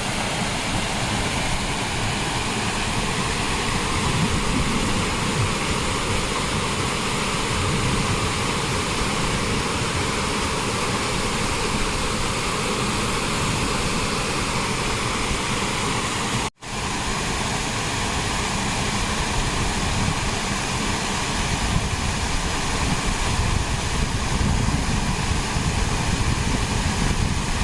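Waterfall rushing: a loud, steady, even roar of falling water, broken once by a brief cut about two-thirds of the way through.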